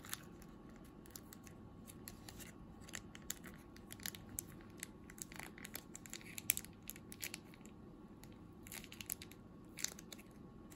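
Plastic liquid-soup sachet being torn open and squeezed out by hand: faint, scattered crinkles and sharp clicks of the packet.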